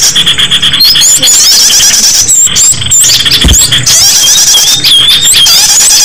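Loud, dense chorus of small songbirds, many high-pitched chirps, whistles and trills overlapping without pause: a bird-lure (pikat) recording made to draw small birds in. A brief low thump sounds about halfway through.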